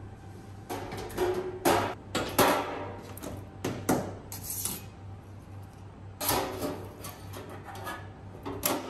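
Stainless-steel electric deep fryer being assembled, its perforated bottom plate set down into the steel tank: a series of separate metal clanks and rattles, some ringing briefly.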